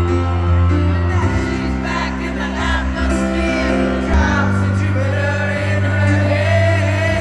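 Live concert music: a singer's voice over a band with a heavy, sustained bass, recorded from the audience in a large hall.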